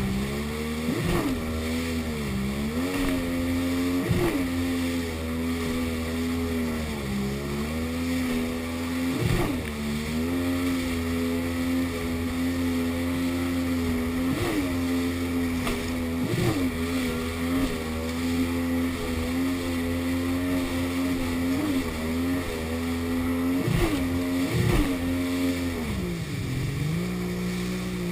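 Jet ski engine running steadily at speed, its pitch dipping briefly and coming straight back up about a dozen times, each time with a thump, as the craft runs over chop. Near the end the engine drops to a lower, steady note as it slows.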